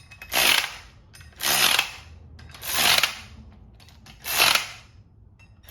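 Milwaukee 3/8-inch electric ratchet run in four short bursts, each about half a second, drawing flywheel bolts up against a very tight fit on the crankshaft hub.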